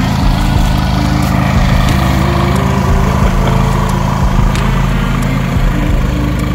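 Kubota compact tractor's diesel engine running steadily as the tractor drives along.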